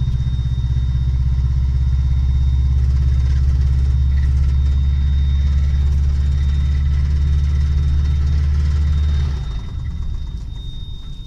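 Subaru EJ205 flat-four engine running steadily, an engine that has a knock and whose oil is running hot at 115 degrees. About nine seconds in, its sound drops away sharply.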